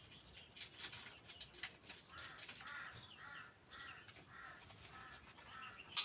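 A crow cawing faintly, about six harsh caws in a steady run, after a few faint clicks.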